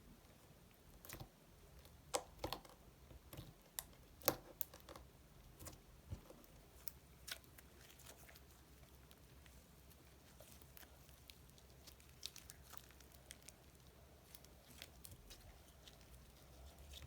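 Faint, irregular small pops and clicks of slime being handled and mixed, thickest in the first several seconds and thinning out after that.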